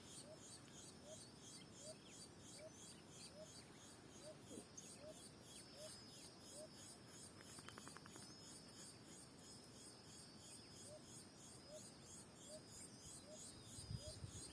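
Near silence with faint insects chirring in an even rhythm of about four pulses a second, and a soft short chirp repeating about twice a second.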